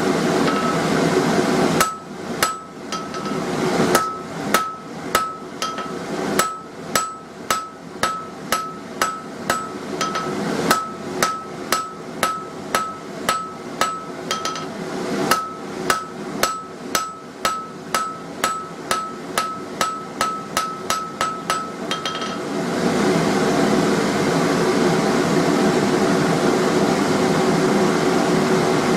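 Hand hammer striking hot square steel stock on an anvil to draw out a chisel-point taper: about two blows a second for some twenty seconds, each with a clear ringing note. A steady rushing noise runs underneath and carries on alone after the hammering stops.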